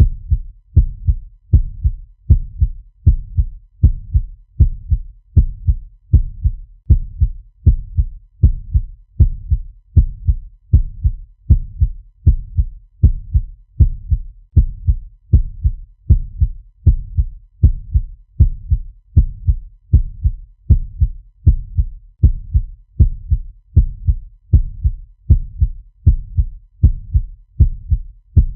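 Heartbeat sound effect: a steady, quick rhythm of low thumps that keeps an even pace throughout.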